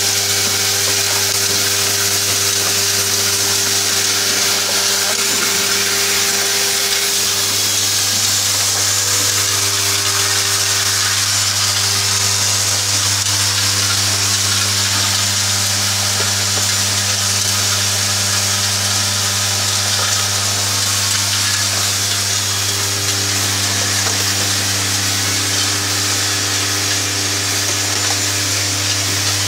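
Automatic MCB-box clamping and screwing machine running, its vibratory bowl feeders giving a steady low buzz over a dense hiss of rattling small metal parts. The buzz grows stronger about seven seconds in.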